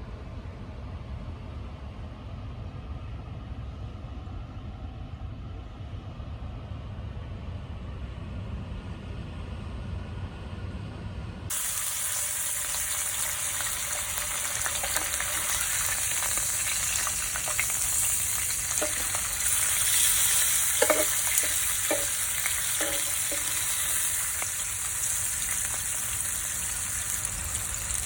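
A steady low rumble, then an abrupt switch about eleven seconds in to food sizzling as it fries, a loud steady hiss with a few light clicks.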